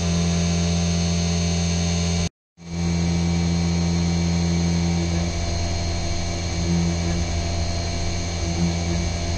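A CNC vertical mill running a slow 3D finishing pass with a ball-nose end mill in aluminium, with flood coolant spraying on the part. It gives a steady hum with a high whine, and the sound drops out briefly just after two seconds in.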